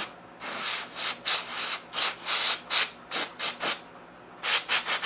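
Aerosol spray can fired through its red extension straw in a quick series of short hissing squirts, with a brief pause a little under four seconds in. It is blasting grime off a lawn mower engine's governor arm.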